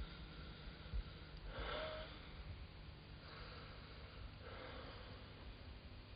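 A dying man breathing heavily, three slow, noisy breaths.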